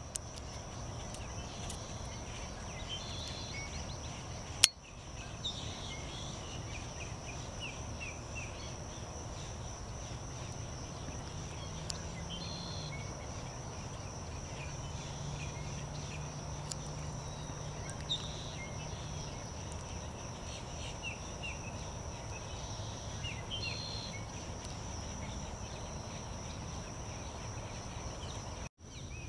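Wetland ambience: a steady high-pitched insect drone over a low, even rumble, with short runs of chirping bird calls every few seconds. One sharp click about five seconds in is the loudest thing.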